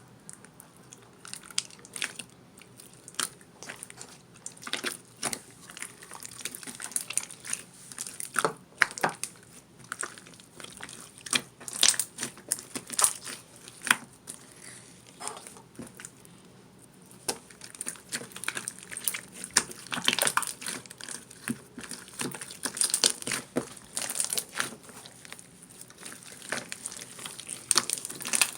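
Close-up crinkling and crackling of something handled by hands, with many irregular sharp clicks.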